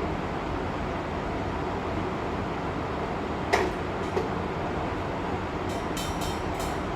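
Strong wind blowing in a steady low rush. About three and a half seconds in there is a sharp knock, then a smaller one half a second later, and a few quick high clicks near the end.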